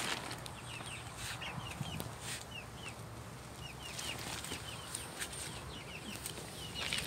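Baby chicks peeping in their brooder: a scattered string of short, high chirps, each falling in pitch, with a plastic tarp rustling and a few knocks as it is handled.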